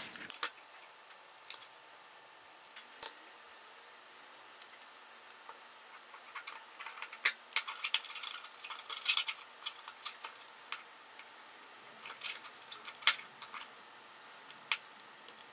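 Faint clicks and rustles of hands threading a nylon zip tie through laser-cut plywood parts and pulling it tight around a hobby servo. Short runs of quick ticks come about halfway through and again near the end.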